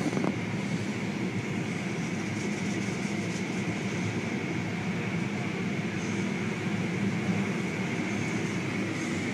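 Car wash brushes scrubbing a car: a steady mechanical wash of noise with a faint high whine held throughout.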